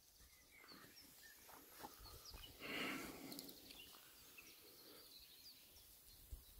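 Near silence: faint outdoor ambience with scattered distant bird chirps and a brief soft rustle about three seconds in.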